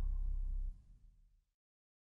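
The end of the background music: a deep booming note dying away as a low rumble, which drops out about three-quarters of a second in and leaves dead silence.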